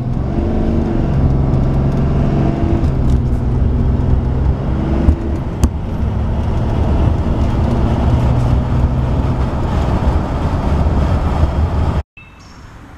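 2014 Ram's Cummins 6.7 L inline-six turbo diesel under full throttle, heard from inside the cab, with its emissions equipment intact, as the automatic transmission upshifts through the gears. The engine sound cuts off abruptly about a second before the end.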